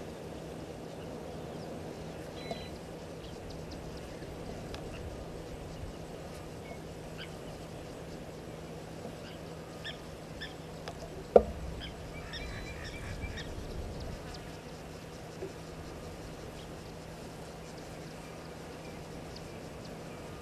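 Outdoor waterhole ambience: a steady low hiss and hum with faint, scattered short bird chirps, most of them a little past the middle. A single sharp knock about eleven seconds in is the loudest sound.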